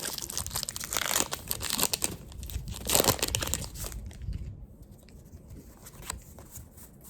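Foil Pokémon booster pack wrapper crinkling and tearing as it is opened, a dense crackle for about four seconds, followed by a few light clicks.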